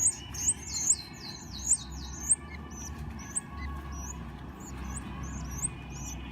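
Canary chicks begging: a quick series of short, high cheeps, each sliding upward in pitch, about two a second, loud for the first couple of seconds and then fainter and more spaced out.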